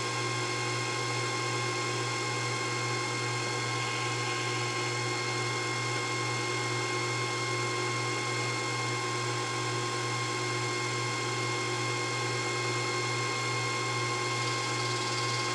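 Proxxon PD 150/E mini lathe running steadily at constant speed, an even motor hum with a steady high whine.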